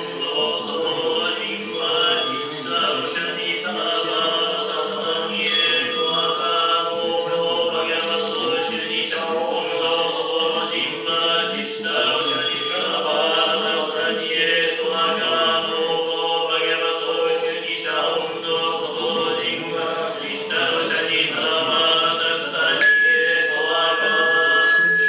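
Ritual music of chanting voices over a steady drone. A sustained high ringing tone enters near the end.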